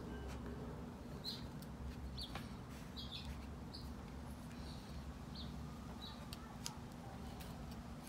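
Faint clicks and crisp little cuts as a V-shaped carving tool is pushed into a dragon fruit stem to gouge out its nodes, with about eight short high chirps scattered through.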